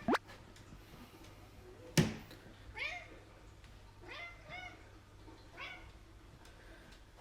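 Bengal cat giving a run of short meows, several in quick succession through the middle of the stretch. There is a sharp knock about two seconds in, the loudest sound here.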